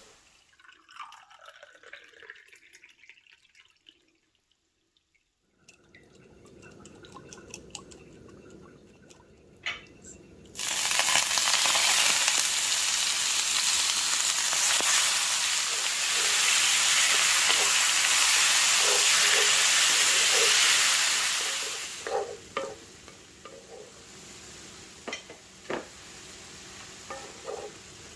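Food sizzling loudly in hot oil in a frying pan, starting suddenly about ten seconds in and dying down about eleven seconds later. Around it, a utensil knocks and scrapes against the pan as the food is stirred.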